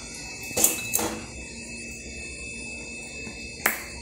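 Brief clatters of kitchen handling: two knocks close together about half a second in, and one sharp click near the end.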